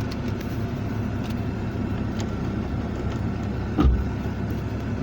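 A vehicle engine idles in a steady low rumble, with a single knock just under four seconds in.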